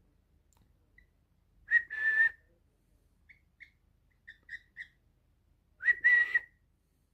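Pet parrot whistling: two loud, short whistled calls on one steady pitch, about four seconds apart, with a run of soft short chirps between them.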